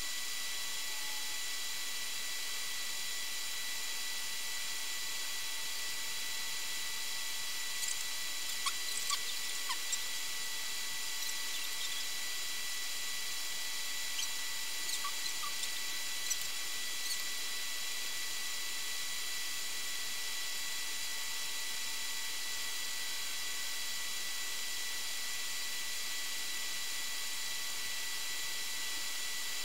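Steady hiss with thin, steady high whining tones, typical of a camera's own electronic recording noise. A few faint, short high chirps come and go between about 8 and 17 seconds in.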